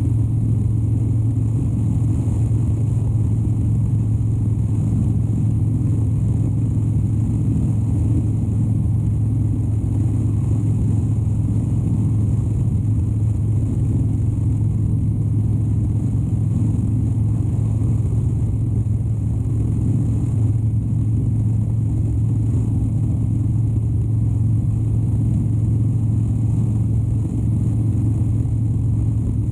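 2013 Harley-Davidson Dyna Wide Glide's 103-cubic-inch air-cooled V-twin running at a steady cruising speed, with a constant low, even drone and no change in revs.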